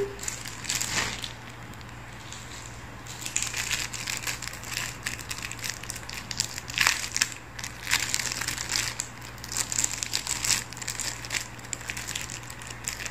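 Thin plastic packaging crinkling and crackling as it is handled and opened, a run of irregular small crackles that thickens about three seconds in.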